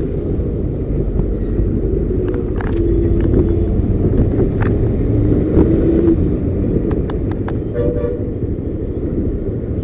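Wind rushing over the microphone and a motorcycle engine running at highway speed, with a few light ticks scattered through. Another vehicle's horn sounds briefly twice, about three seconds in and again near the middle.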